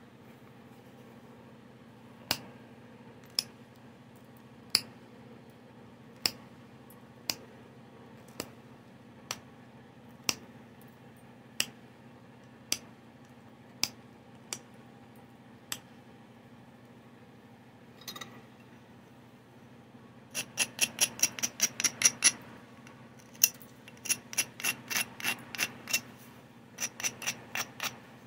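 Stone Clovis point being knapped by hand: about a dozen sharp single clicks, roughly a second apart. After a short pause come several quick runs of rapid, ringing clicks, like an abrader rubbed back and forth along the edge.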